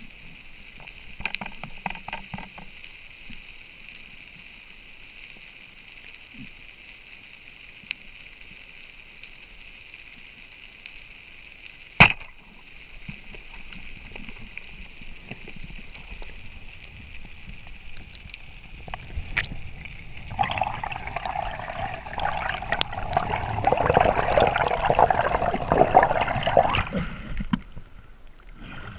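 Underwater recording with a steady high hiss and faint clicks, broken about twelve seconds in by one sharp crack of a speargun firing. From about twenty seconds in, loud rushing and sloshing water as the diver swims up and breaks the surface; it stops shortly before the end.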